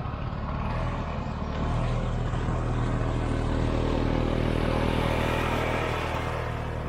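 1967 Ski-Doo Olympic snowmobile's 250cc single-cylinder two-stroke engine running at a steady pace as the sled drives up and passes close by. It gets louder about a second and a half in and eases off slightly near the end as the sled turns away.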